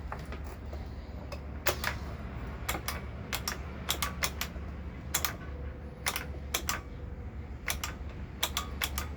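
Irregular sharp clicks, roughly a dozen and a half, from handling the Dirt Devil Multi-Surface vacuum and working its switch while its motor fails to start, over a steady low background hum.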